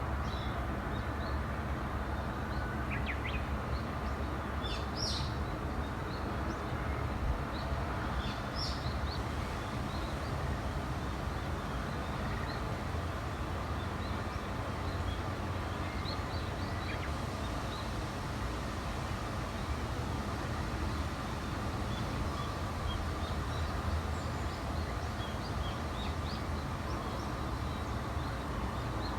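Wild birds chirping now and then in short high notes, a few clusters in the first ten seconds and fainter ones later, over a steady low rumble.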